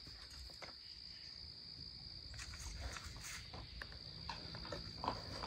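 Crickets trilling steadily and faintly, with a few light knocks scattered through.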